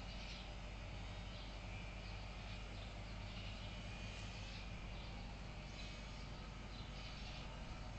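A steady low hum, with faint high chirps at irregular intervals about once a second.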